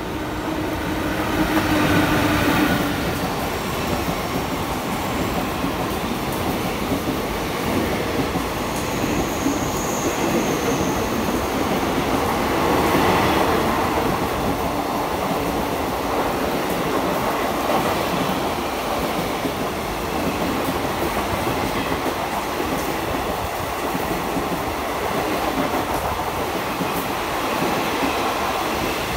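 Passenger express train hauled by a WAP-4 electric locomotive running past, a steady loud running noise of locomotive and coaches on the rails. A held tone at the start stops about two seconds in, and a faint high squeal comes about ten seconds in.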